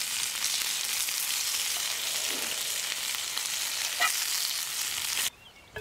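Meat frying in a skillet over campfire coals: a steady sizzle with small pops and crackles, one louder pop about four seconds in, cutting off suddenly near the end.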